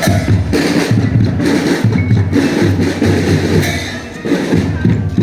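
Indonesian drumband (marching drum band) playing: massed drums and percussion with a melodic line over them, dipping briefly in loudness about four seconds in.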